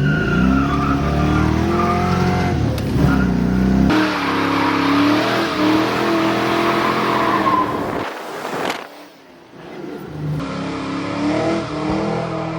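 1989 Ford Mustang Fox-body engine running and revving, its pitch rising and falling, across several cut-together clips, with a brief quieter dip about eight to nine seconds in.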